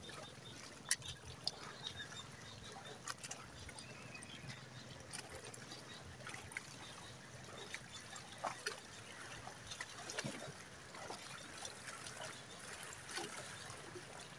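Faint trickling and lapping of small waves at the water's edge, with scattered light clicks.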